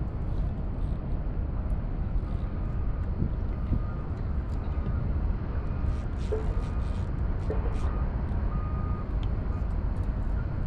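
Steady low rumble of wind buffeting the microphone on open water, with scattered faint ticks.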